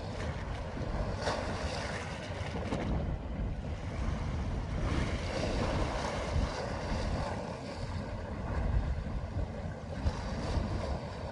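Wind buffeting the microphone over sea water washing against a concrete breakwater: a steady, noisy rumble with no distinct events.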